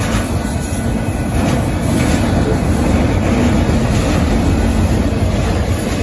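Union Pacific freight train's autorack cars rolling past at a grade crossing: a steady, loud rumble of steel wheels on the rails.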